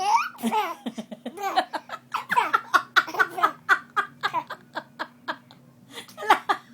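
A young child laughing, a long run of quick short laughs one after another, with a brief lull shortly before the end.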